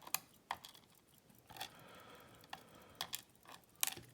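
Faint, scattered clicks of small metal parts: the pins and steel springs of a Schlage lock cylinder being handled and tipped out during disassembly, metal tapping on metal about half a dozen times.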